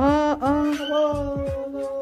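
Background music: a melody of long, steady held notes that begins with a short swoop in pitch.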